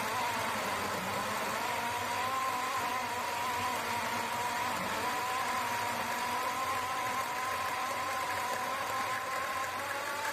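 Compressed-air-driven Magnevane M15 Swordfish chainsaw running and cutting through a wooden beam, a steady whine that wavers slightly in pitch. The saw is fed at a low 2 bar air pressure, so it cuts slowly.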